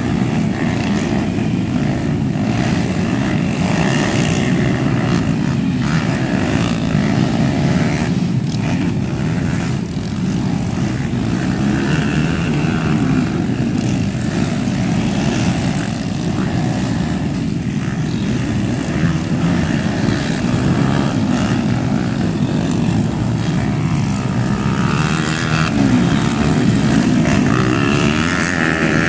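Small cubcross motorcycle engines buzzing and revving as the bikes race around a dirt track, a steady drone that rises and falls with the throttle and rises in pitch near the end.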